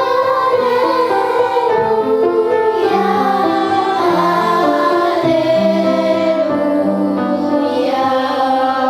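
A young woman's voice singing long held notes with vibrato, over an instrumental accompaniment playing chords.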